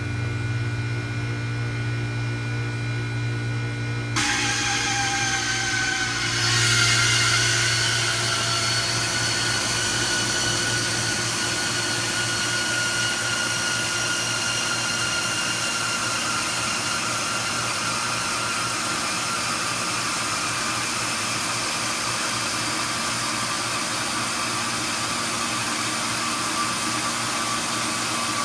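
HVAC system starting up: a steady hum, then about four seconds in the unit kicks on with a sudden rush of air noise. It surges again a couple of seconds later, with whining tones that slide down in pitch before settling into a steady rushing run with a faint whine.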